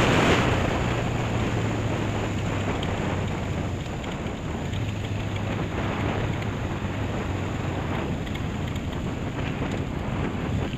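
Wind buffeting the microphone of a camera on a moving motorcycle, over the steady hum of a Honda CB500's parallel-twin engine at cruising speed. The wind rush eases over the first couple of seconds, then holds steady.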